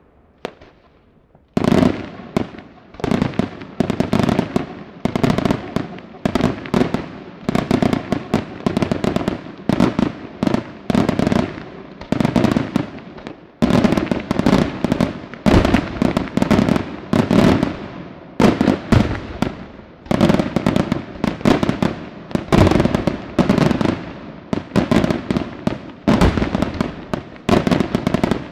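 Daytime aerial fireworks going off in a dense barrage of bangs, in clusters about once a second, starting about a second and a half in, with a brief pause about halfway.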